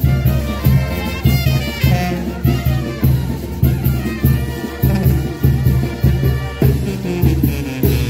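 Mexican banda brass band playing dance music: trumpets and other brass over drums and a deep bass line, with a steady beat.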